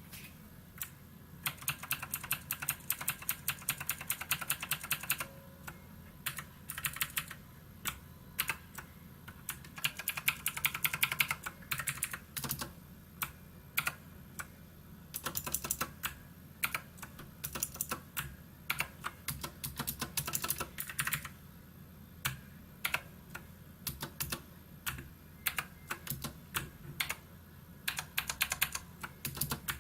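SKYDIGITAL NKEY Z1 mechanical keyboard being typed on: runs of rapid key clicks broken by pauses and scattered single keystrokes.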